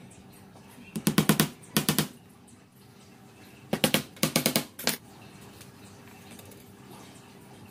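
Quick runs of sharp knocks, each run a handful of rapid strikes about a tenth of a second apart. There are five runs: one about a second in, one about two seconds in, and three close together around the four-to-five-second mark.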